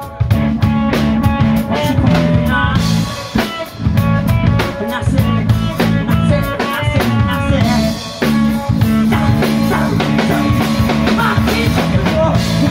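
Live rock band playing loudly: drum kit, electric bass and electric guitar driving a steady beat, with brief breaks in the playing about three and a half and eight seconds in.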